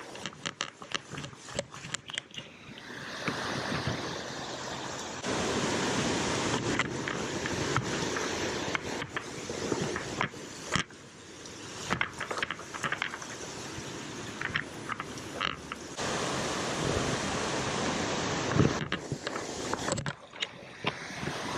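Footsteps through grass and brush, with clothing rubbing and knocking against a body-worn camera's microphone, many short knocks over a rushing noise that swells and drops in long stretches.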